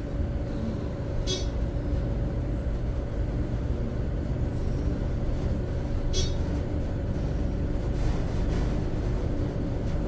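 Steady low mechanical rumble and hum inside an old elevator car, described as very loud in here. A short, high, rattly chirp comes about every five seconds, near the start and again about six seconds in.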